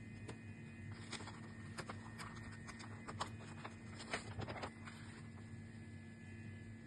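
Paper booklet being handled and a page turned: a run of crackles and rustles, loudest about three to four seconds in, over a steady faint hum.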